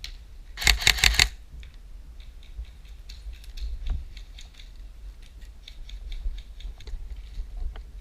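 Airsoft gun firing a short burst of about six rapid shots about a second in, followed by fainter runs of rapid clicking from further-off airsoft fire.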